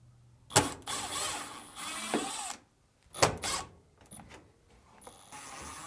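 A powered driver with a Phillips bit backing out the two screws of a Samsung dryer door assembly. Each time there is a click as the bit seats, then the motor runs with a thin high whine for about two seconds: once near the start and once near the end.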